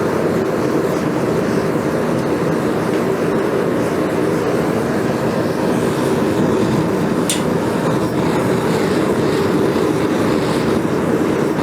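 Forge running with a steady rushing noise while the steel heats, with a single light tick about seven seconds in.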